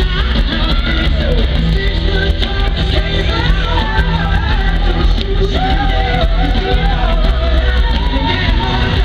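Live rock band performance: a male lead vocalist sings into a handheld microphone over the full band, with a strong bass.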